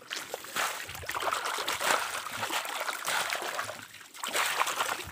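Shallow muddy ditch water splashing, sloshing and trickling in irregular bursts as hands grope through it for fish.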